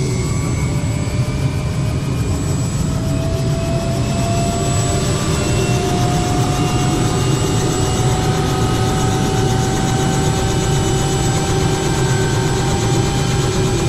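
A two-bladed light helicopter running on the ground with its rotor turning: a loud, steady drone with whining tones that climb slowly in pitch as it winds up for takeoff.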